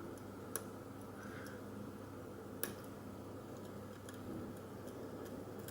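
Sparse faint clicks of a lock pick working the pin stack of a 50 mm pin-tumbler padlock under tension, with a couple of sharper ticks about half a second in and near the middle, over a steady low hum.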